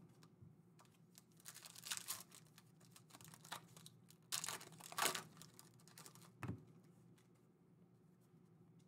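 Foil wrapper of a basketball trading-card pack being torn open and crinkled by hand, in a few short rustling bursts, with a soft knock about six and a half seconds in.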